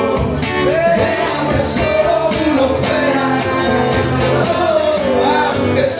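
A man singing into a microphone while playing an acoustic guitar, a live solo performance with a melody that rises and falls.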